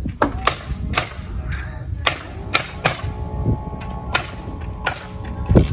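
House framing and sheathing work: about a dozen sharp, irregularly spaced cracks of nails being driven into the wall, over a low rumble. A faint steady hum joins about three seconds in.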